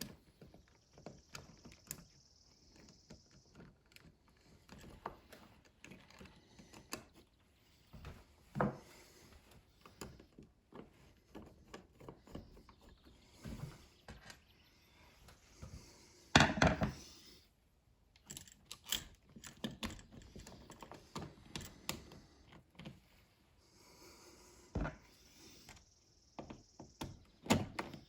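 Scattered clicks, taps and scrapes of hand work at an electrical wall box as a dimmer switch and its wires are pushed into the box and screwed in, with a louder clatter about halfway through.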